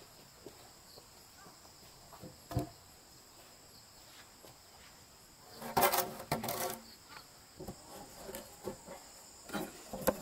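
Heavy wooden planks being handled: a single low thud about two and a half seconds in, then a louder stretch of wood knocking and scraping around six seconds as a plank is slid over the others. Insects keep up a steady high drone in the background.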